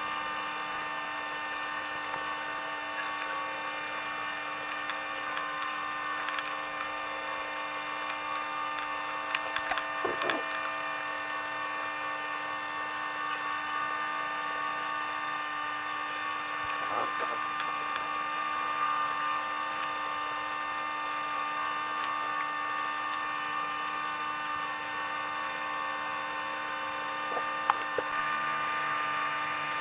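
Outrigger boat's engine running steadily under way, a constant even drone with a few brief knocks about a third of the way in and near the end.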